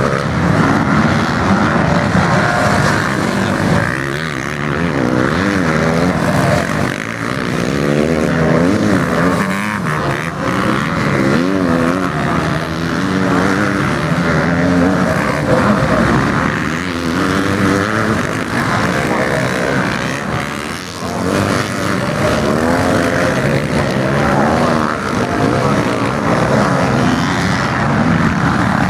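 Several motocross bikes' engines revving together, their pitches rising and falling over one another as the riders work the throttle and shift.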